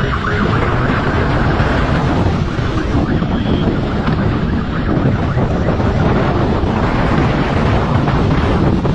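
Wind buffeting the microphone of a camera on a fast-moving motorcycle, a loud steady rush mixed with the motorcycle's engine and road noise.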